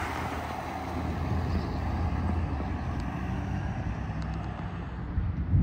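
A Ford truck-chassis ambulance driving away: steady engine hum and tyre noise that ease off as it pulls into the distance. No siren is sounding.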